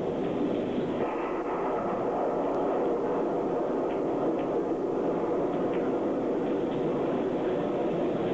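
A steady, even rushing noise with a few faint clicks.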